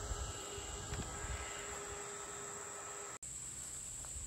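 Steady, high-pitched insect chorus of crickets, with a faint steady hum underneath that stops about three seconds in.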